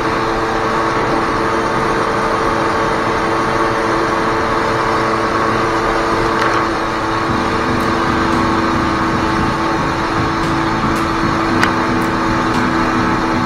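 Jet ski engines running steadily at speed, with the hiss of water spray and rushing water. The engine note shifts a little about seven seconds in.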